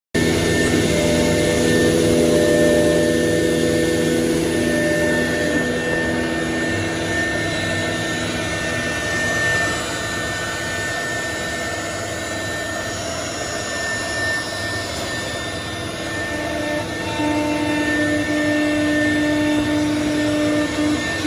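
CNC router running with its 250 m³/h vacuum hold-down pump: a steady machine drone with several held whining tones, one of them high-pitched, whose pitches shift a few times.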